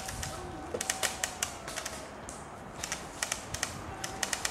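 Airsoft guns firing: sharp clicking pops in short, irregular bursts.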